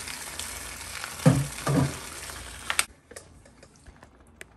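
Thick, creamy pot pie filling being scraped out of a plastic bowl and spread in a foil pan with a spatula, a wet stirring scrape over a steady hiss, with two heavy low knocks a little over a second in. The sound stops abruptly about three seconds in, leaving only faint room noise.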